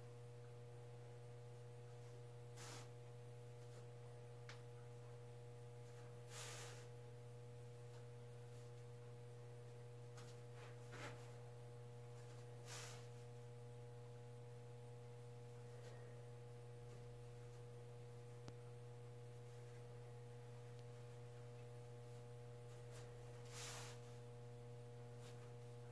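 Near silence over a steady low electrical hum with a faint higher tone, broken by a handful of short, soft scratches of a pencil marking lines on a foam surfboard blank.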